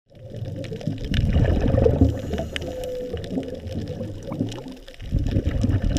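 Underwater ambience of bubbling, gurgling water, deep and irregular. It dips briefly about five seconds in.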